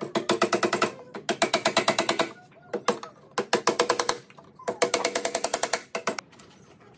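Hammer tapping small nails into a pine frame in quick bursts of light, rapid strikes, about five bursts of roughly a second each, every strike with a short ringing tone.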